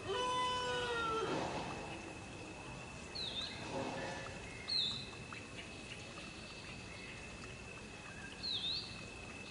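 A rooster crowing, its drawn-out call sliding down and ending about a second in. Then come three short high chirps from a small bird, over a steady high-pitched tone.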